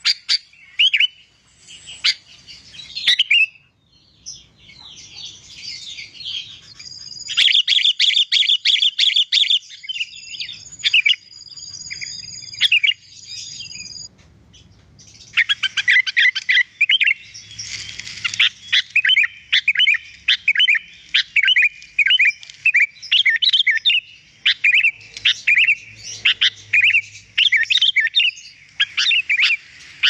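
Sooty-headed bulbul (kutilang) singing vigorously and without pause: quick chattering and whistled notes, with a fast buzzy trill about seven seconds in and a dense run of rapid repeated phrases through the second half.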